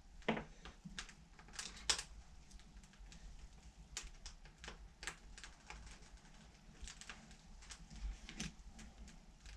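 Faint, irregular small clicks and taps from hands fitting red and black wire connectors. The sharpest clicks come about a third of a second and two seconds in.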